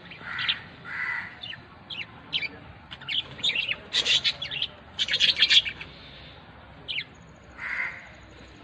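Pet lovebirds chirping and calling, with short dense bursts of rapid sharp calls about four and five seconds in.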